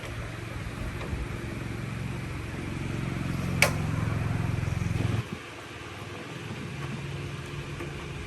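A low-pitched motor running and growing slightly louder, with a sharp click about three and a half seconds in. It drops away suddenly just after five seconds, leaving a quieter low running sound.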